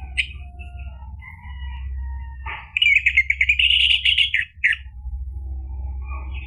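Orange-headed thrush singing: scattered short whistled notes, then a loud, fast run of warbling notes from about two and a half seconds in to nearly five seconds, over a steady low hum.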